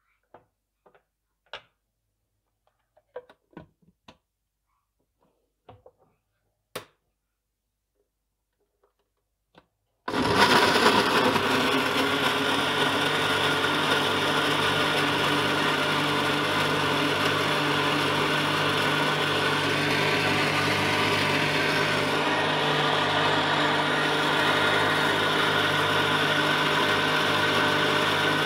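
A few light clicks and taps, then about a third of the way in a countertop electric blender starts abruptly and runs steadily at full speed with a constant motor hum, blending bananas, sugar and milk into a milkshake.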